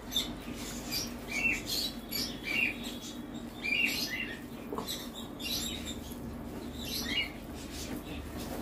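Eating sounds: wet chewing and lip smacks with fingers squishing rice mixed with posto and dal, as short, uneven clicks and squelches a few times a second over a faint steady hum.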